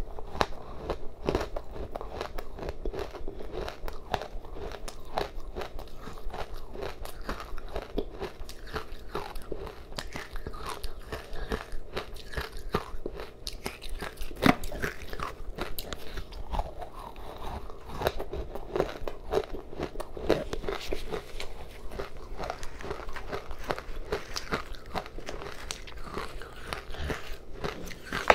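Close-miked crunching and chewing of crushed matcha-flavoured ice, bite after bite, full of small sharp crackles, with one loud crunch about halfway through.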